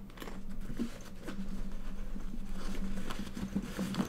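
A bag strap with metal clip hardware being pulled out and handled: rustling with many small, irregular clicks and clinks of the metal clips.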